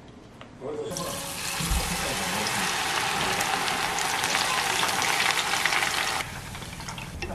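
Battered enoki mushrooms sizzling in a pot of hot oil as they are deep-fried: a loud, dense crackling hiss that starts about a second in and cuts off suddenly about six seconds in.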